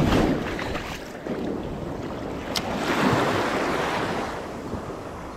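Small waves washing up over the sand in the shore break, surging twice, with wind buffeting the microphone. A single sharp click about two and a half seconds in.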